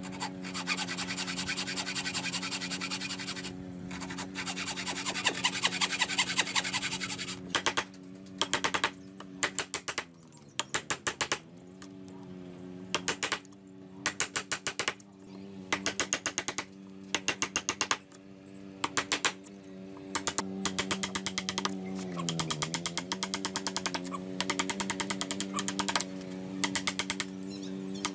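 Wooden-framed bow saw cutting through a pine board in rapid strokes for about the first seven seconds, then a wide chisel chopping out a notch in the board in quick groups of sharp strikes. A steady humming tone runs underneath and dips in pitch twice.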